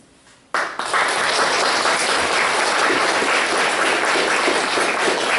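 Audience applauding. The clapping breaks out suddenly about half a second in and keeps up at a steady level.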